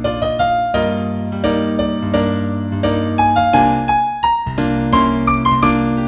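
New age keyboard music: a gentle piano-like melody of single struck notes over held chords, with a brief drop in level about four seconds in.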